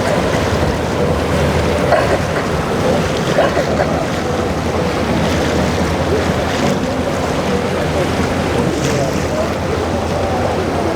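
Boat engines running through rough inlet water, with waves and wind buffeting the microphone, steady throughout.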